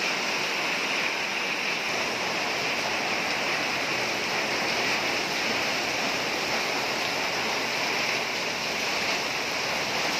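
Heavy rain pouring down onto a wet concrete yard and potted plants, a steady, dense hiss of drops splashing on the ground and puddles.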